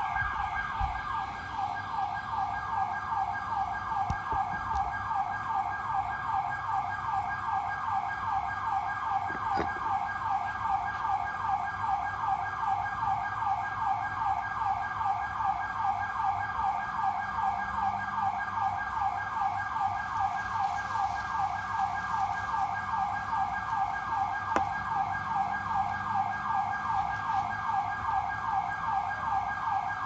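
A calling night animal: rapid, even chirps repeating several times a second without a break.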